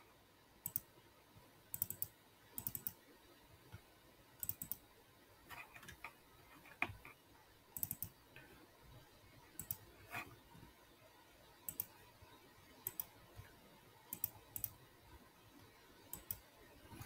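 Faint, irregular clicks and key taps on a computer keyboard, coming singly or a few at a time with short gaps between them.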